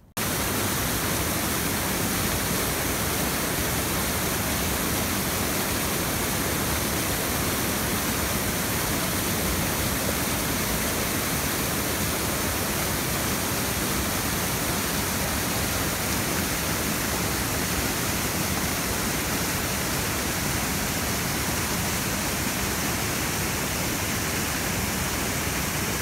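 Mountain torrent rushing over rocks: a steady, unbroken whitewater roar that cuts in abruptly at the start.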